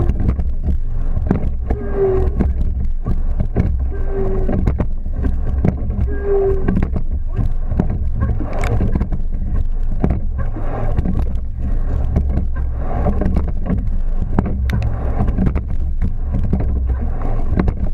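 Sweep-oar rowing shell under way at race pace: a steady rumble of wind and water on the boat-mounted camera, with frequent knocks and clicks from the oars and boat. A short pitched note comes about every two seconds in the first seven seconds.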